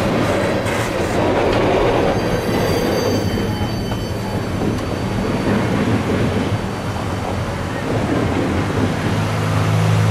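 Freight train cars rolling slowly along street-running track, a steady rumble of wheels on rail, with a faint high wheel squeal about two to four seconds in as the cars take the curve.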